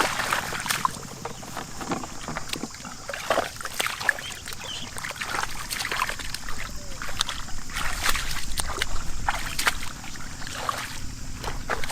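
Shallow floodwater splashing and sloshing in quick, irregular splashes.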